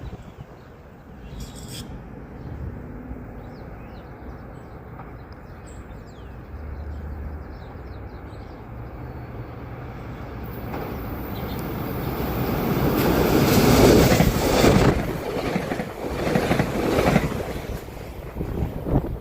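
SEPTA Regional Rail train passing through the station: a low rumble builds over several seconds to its loudest about two-thirds of the way in, then carries on with a rapid clatter of wheels over the rails.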